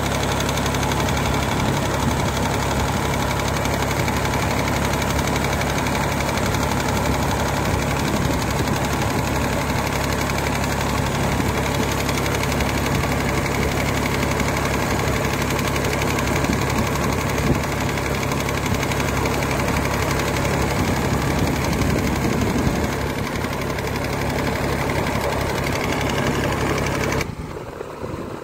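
Tractor engine idling steadily. About a second before the end it drops suddenly to a quieter engine sound.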